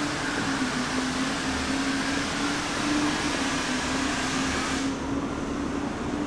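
Steady mechanical drone with a wavering low tone over a hiss. The upper hiss drops off suddenly about five seconds in, while the drone carries on.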